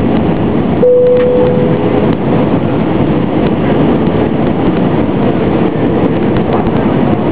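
Steady rushing cabin noise of an Airbus A320-family airliner descending to land, its engines and airflow heard from inside the cabin beside the wing. About a second in, a short steady tone sounds and fades out over a second or so.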